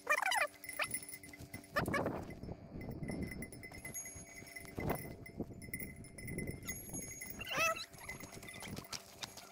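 Farm animals bleating twice, a short wavering call at the start and another near the end, over faint steady ringing like distant livestock bells.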